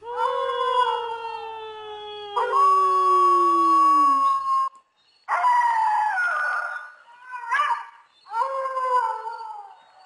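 Dogs howling: long overlapping howls, one sliding slowly down in pitch while another holds a steady note, then a brief pause about halfway and several more shorter howls.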